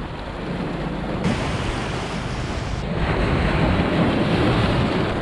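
Sea waves washing and breaking against rocks at the shoreline, growing louder about three seconds in, with wind buffeting the microphone.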